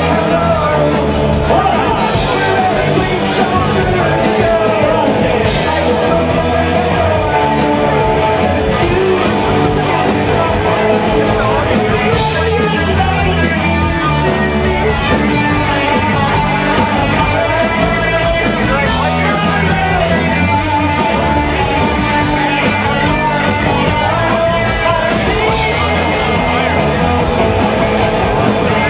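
Live rock band playing loudly, with a singer over a fast, steady drum beat.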